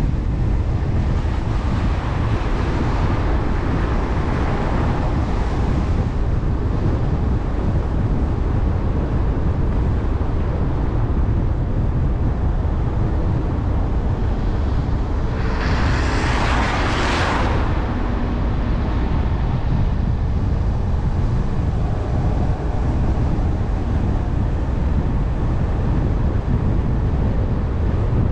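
Jeep driving on a cleared road: steady low rumble of road noise and wind buffeting the microphone. A brief louder rush of hiss about halfway through.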